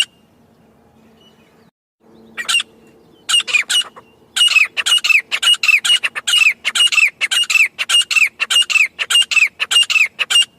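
Grey francolin calling: after a short pause, a single harsh note, then a few more, building about four seconds in into a fast, loud run of repeated notes, each with a falling whistle, about three a second.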